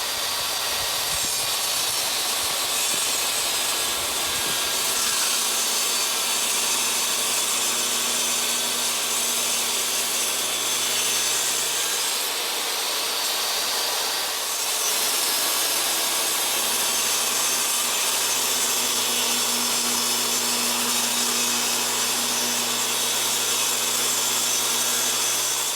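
A power saw cutting wood: a steady, sustained sawing noise that runs on with only small changes in level.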